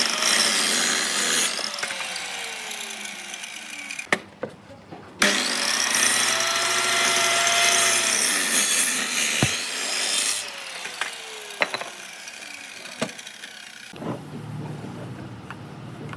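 Woodworking power tool cutting hardwood in several separate bursts, with abrupt breaks between them. A falling tone follows some of the bursts, and sharp clicks and knocks come in between.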